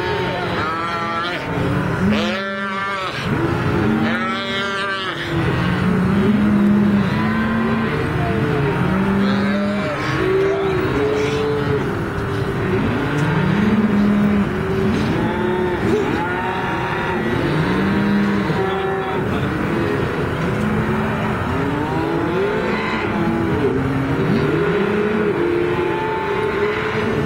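Many cows and calves bawling at once, long arching moos overlapping one another without a break. Roped calves are being held down for branding and the cattle are calling throughout.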